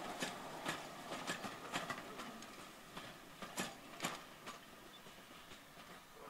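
Wheels of departing LNER teak passenger coaches clicking over the rail joints in an irregular clickety-clack that fades as the train draws away.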